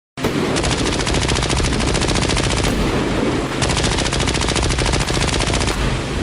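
War sound effect of rapid automatic gunfire, machine guns firing in long continuous bursts.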